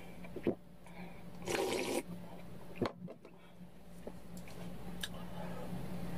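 A person slurping soybean-milk broth from a bowl of kongguksu, one loud slurp about one and a half seconds in, with a few light knocks. A steady low hum runs underneath.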